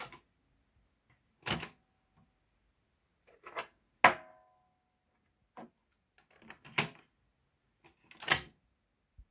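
Cassette-deck mechanism clicks and clunks from a 1977 JVC KD-35: the eject key is pressed, the cassette door springs open, a cassette is handled and loaded, and the door is pushed shut. There are about seven separate clicks; the loudest, about four seconds in, is followed by a short metallic spring ring.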